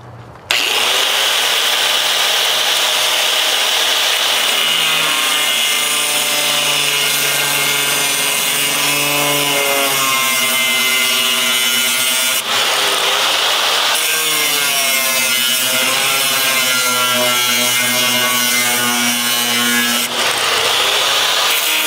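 Angle grinder with a thin cutoff wheel cutting through the steel floor of a truck bed, throwing sparks. The whine starts sharply about half a second in and runs on steadily, its pitch wavering as the wheel bites and eases in the metal.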